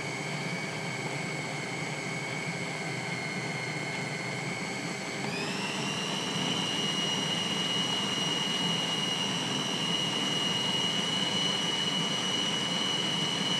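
Electric food processor motor running continuously, mincing raw chicken and vegetables into a fine meatball paste. Its whine steps up in pitch about five seconds in and holds there.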